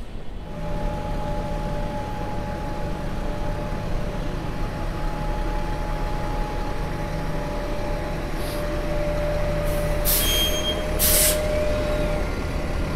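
Articulated city bus running close by, a low engine hum with a steady whine over it, then two short sharp hisses of its air brakes about ten and eleven seconds in.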